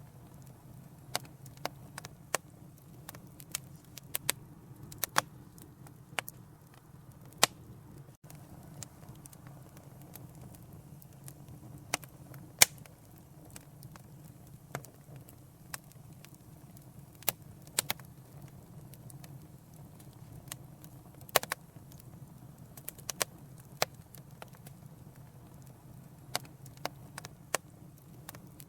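Wood fire in a fireplace crackling: irregular sharp pops and snaps, a few louder than the rest, over a low steady rumble.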